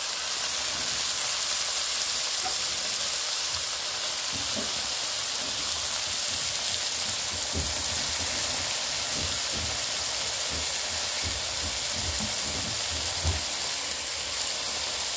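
Oil sizzling steadily in a pot of frying onions, chilies and garlic as finely chopped spinach is dropped in by hand, with soft irregular rustles and knocks from about four seconds in until near the end.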